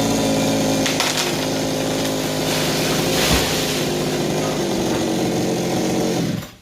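Chainsaw engine running steadily at speed, cutting off suddenly near the end.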